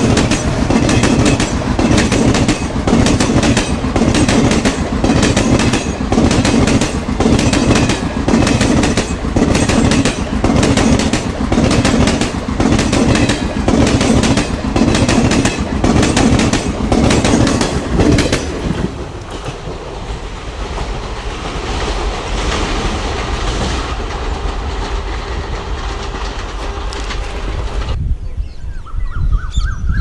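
Passenger coaches passing at speed, their wheels clattering over the rail joints in a fast, even clickety-clack. After about two-thirds of the way the clatter fades to a softer rumble as the last coaches go by, and near the end it cuts off suddenly to a much quieter scene.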